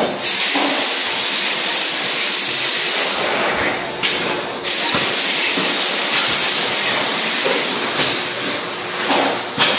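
A loud, steady hiss, like rushing air or machine noise, broken by a few brief dips.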